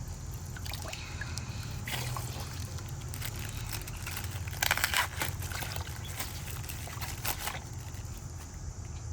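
Water trickling and sloshing as a water-filled plastic bag is opened, over a steady low hum, with a brief cluster of sharp crackles about five seconds in.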